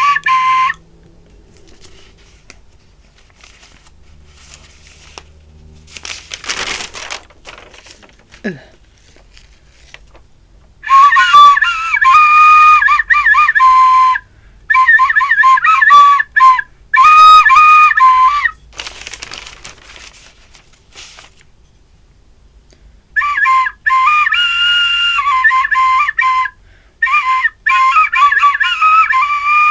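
Chinese flute playing a slow, high melody in short phrases, with a long pause of about ten seconds after the opening note.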